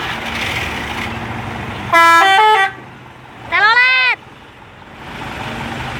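Bus telolet horn, a multi-tone musical air horn, blaring twice over idling traffic. About two seconds in comes a quick stepped run of notes, and a second later a single tone that swoops up and falls back.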